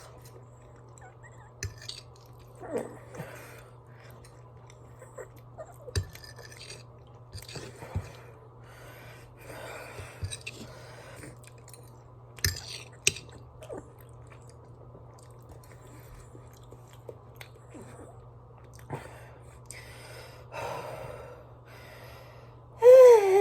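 Close chewing of a soft, mushy chicken and pasta casserole, with scattered sharp clicks, over a steady low hum. Near the end a loud, drawn-out, wavering cry starts.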